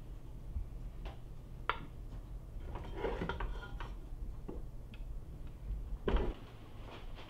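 Wooden spatula scraping and knocking against a metal pot and a ceramic plate as fried food is scooped out and served, in a few irregular clatters, the loudest near the end.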